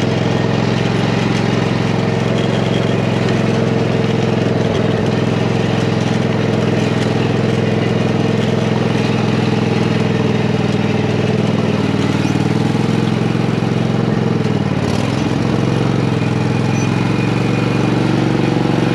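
Craftsman GT5000 lawn tractor's engine running steadily as the tractor is driven, its speed dipping briefly and recovering about fifteen seconds in.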